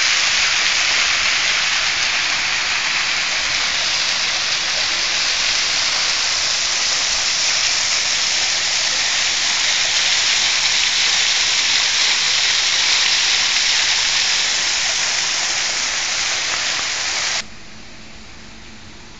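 Water pouring over an artificial rock waterfall and splashing into a pool: a loud, steady rushing hiss. It cuts off abruptly near the end, leaving quieter outdoor ambience with a faint steady hum.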